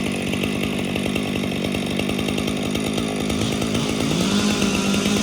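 Chainsaw running while cutting up fallen trees, revving up about three seconds in and holding a higher, slightly louder pitch.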